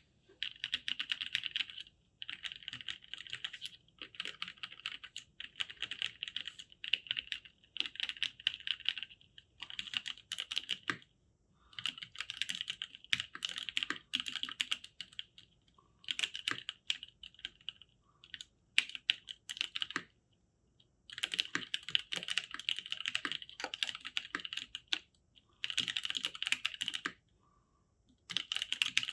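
Typing on a mechanical keyboard with lubed NovelKeys Cream linear switches and GMK Signal keycaps: quick runs of keystrokes in bursts of a second or two, broken by short pauses, with a few separate single presses in the middle.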